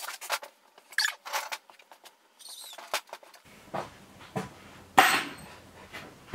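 Scattered clicks, knocks and rustles of tools and gear being handled and moved about on a stainless-steel worktable, with one sharp knock about five seconds in.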